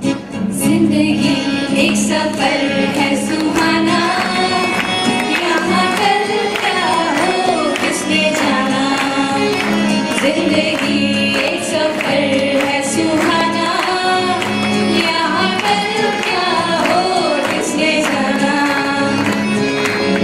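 Girls singing a song together into microphones, with steady instrumental accompaniment.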